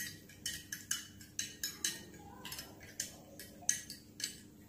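Metal spoon clinking against a glass tumbler while stirring soaked basil seeds into coconut water: quick, irregular clinks about three a second.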